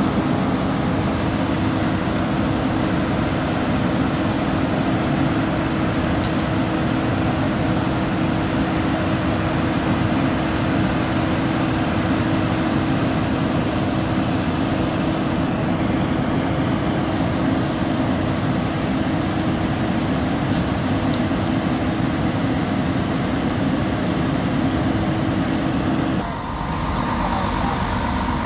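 Fire trucks' diesel engines running steadily: a loud, even drone with a constant low hum. About 26 seconds in the sound changes abruptly to the idle of a single fire engine close by.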